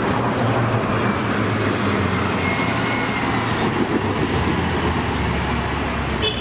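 A large vehicle running, a steady low rumble under dense road or rail noise.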